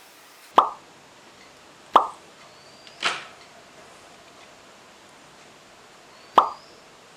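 Four sharp clicks, each with a short ring, spaced unevenly: small screws and a screwdriver being handled while the screws come out of a keyboard's plastic back plate.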